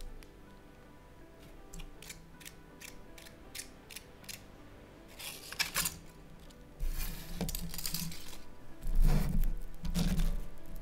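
Light clicks of a small plastic pinwheel toy being handled and fitted together, then rustling and a few dull thumps near the end as a foil-wrapped chocolate egg is picked up from the table, over soft background music.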